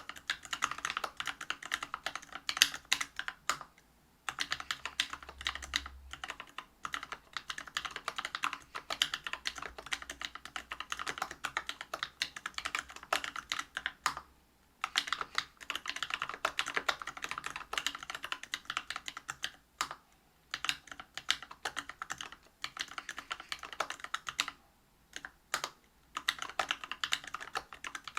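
Fast typing on a Whale 75 mechanical keyboard with Bingsu POM linear switches (67 g), a brass plate and Geekark PBT keycaps: a dense run of keystroke clicks, broken by a few short pauses.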